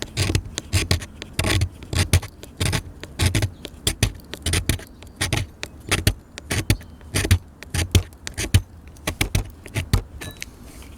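Steel awl of a Victorinox Pioneer Swiss Army knife scraping fatwood into shavings, in short irregular strokes about two a second.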